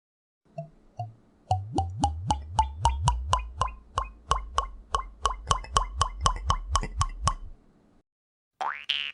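Cartoon sound effect: a quick, even run of short springy plucks or knocks, about four a second, each with a brief tone and a low thump. It starts with two softer hits and stops suddenly.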